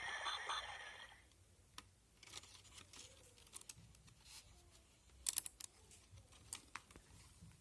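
A recorded sound from a musical pop-up book's sound module fades out in the first second. It is followed by quiet handling of the book's stiff cardboard pages: scattered clicks and taps, with a quick cluster of sharp clicks about midway.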